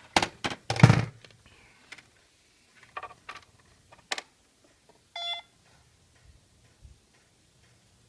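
Buttons being pressed on a bObsweep robot vacuum's charging base as its reset clock is reprogrammed: a cluster of clicks and handling thumps at the start, a few more clicks, then one short electronic beep about five seconds in.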